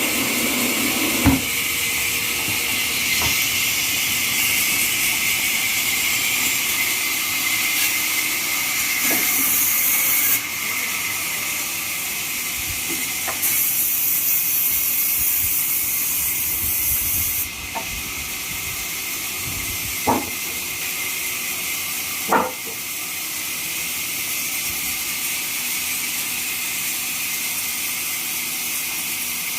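Horizontal trolley bandsaw running through a neem log: a steady hissing saw noise with a few sharp knocks scattered through it.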